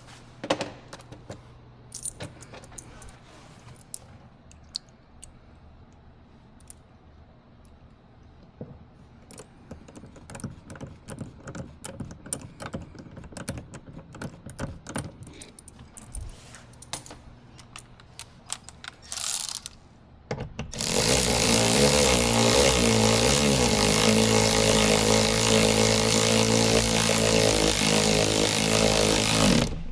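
Scattered clicks and taps of parts and tools being handled, then, about 21 s in, a loud, steady electric motor whirr that starts suddenly, runs about nine seconds and stops.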